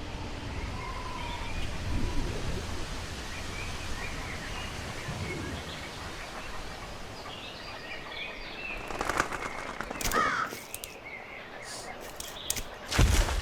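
Outdoor nature ambience with faint bird chirps throughout, over a low wind rumble that fades in the first few seconds. A few sharp clicks and a short rising chirp come about nine to ten seconds in, and a loud thump comes near the end.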